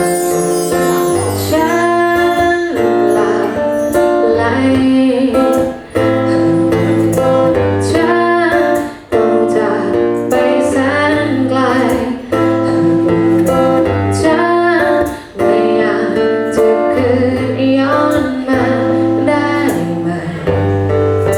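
A woman singing a song live, with a strummed guitar and a bass line underneath.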